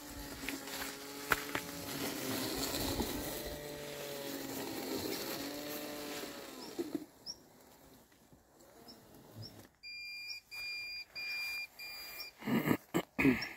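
Landxcape 790 robotic lawn mower running through tall weeds: its motor whine rises and falls in pitch as the load changes, then it stops about halfway through. About ten seconds in, four evenly spaced short beeps sound, followed by a few loud thumps near the end.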